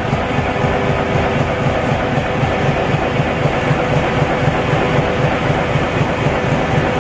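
Flexo printer slotter die-cutter for corrugated cartons running at speed, feeding board sheets from the stack: a loud, steady machine din with a fast, even low thumping beat and a steady hum over it.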